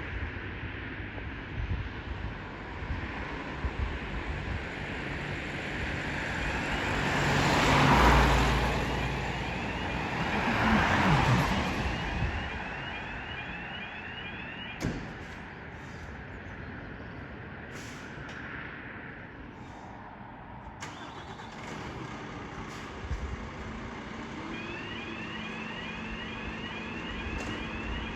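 Heavy road vehicles passing close by, two of them loudest about eight and eleven seconds in. A fire engine's yelping siren sounds in the background for several seconds around the pass-bys and again near the end.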